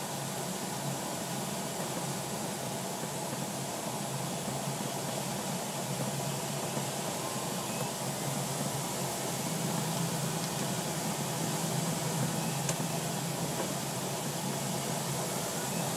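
Steady rush of airflow around the cockpit of a DG505 glider in flight, growing slightly louder about ten seconds in.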